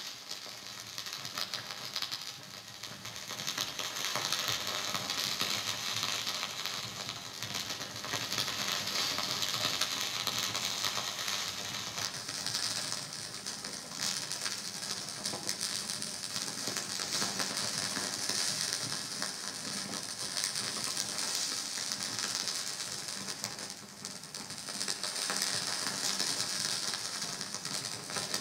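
Laptop electroacoustic music: a dense, grainy stream of very fast electronic clicks and crackle, strongest in the upper range. It builds up over the first few seconds and dips briefly about three-quarters of the way through.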